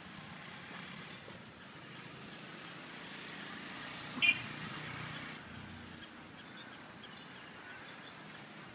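Steady outdoor background noise that swells for a couple of seconds in the middle, with one short, sharp, high chirp a little over four seconds in.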